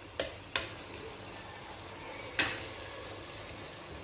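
Chicken pieces sizzling faintly in an enamel pot, with three sharp clinks of the spoon and cup against the pot: two in the first second and one about two and a half seconds in. Green chilli paste is being added and stirred in.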